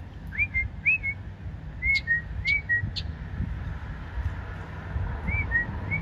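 Northern mockingbird singing: a whistled two-part phrase, a quick rising-and-falling slur followed by a short flat note, repeated in pairs with pauses between them. Sharp clicks come in among the phrases, over a steady low rumble.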